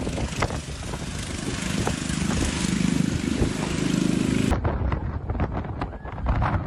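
A vehicle engine running under heavy wind noise. After an abrupt cut about four and a half seconds in, wind buffets the microphone, with many sharp crackles.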